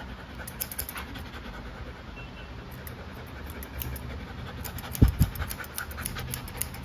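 Thinning shears snipping the fur around a golden retriever's paw, small quick clicks that come thicker in the second half, while the dog pants. A dull thump about five seconds in.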